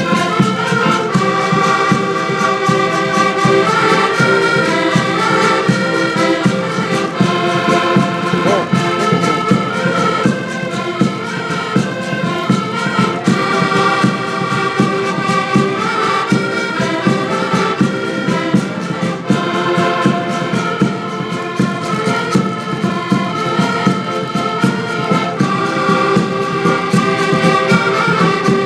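Several button accordions playing a Portuguese folk tune together, with a drum beating time underneath.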